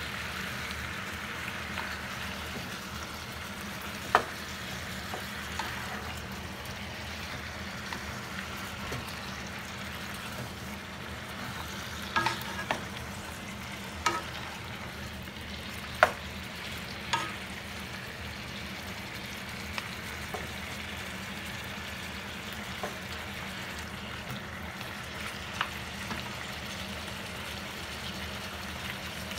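Cubed pork belly sizzling steadily as it fries in a pan, stirred with a wooden spatula that knocks and scrapes against the pan every few seconds. The sharpest knock comes a little past halfway.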